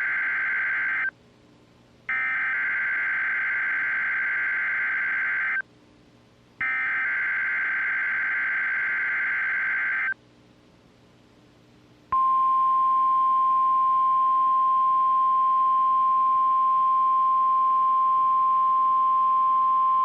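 NOAA Weather Radio SAME alert data bursts: the end of one digital header burst, then two more of about three and a half seconds each, a second apart. About twelve seconds in, the steady 1050 Hz warning alarm tone starts. These are the tone signals of a weekly test of the station's alarm.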